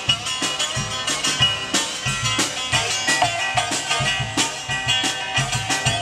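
Live blues band playing: an acoustic guitar over a drum kit keeping a steady beat.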